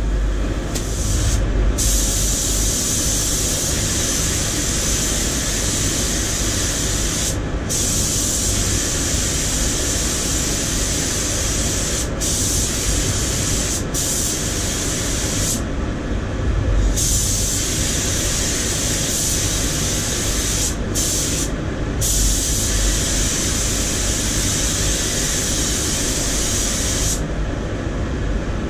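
Compressed-air paint spray gun hissing in long bursts as the painter pulls and releases the trigger, breaking off briefly several times and stopping near the end. Beneath it runs a steady low rumble from the spray booth's air extraction.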